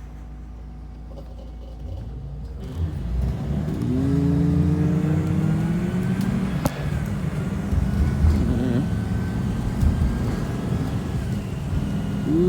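Blue Bird Vision school bus, heard from inside: the engine idles steadily, then about three seconds in the bus pulls away and the engine speeds up with a rising whine as it accelerates, with a single sharp click midway.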